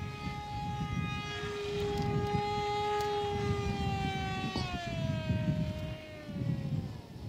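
Parkzone Icon A5 RC plane's electric motor and propeller whining steadily in flight overhead. The pitch holds for about four seconds, then falls away over the last two seconds.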